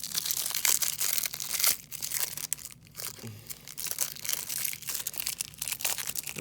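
Cardboard trading-card pack boxes being torn and crumpled open by hand, an irregular crackling with a few sharper rips.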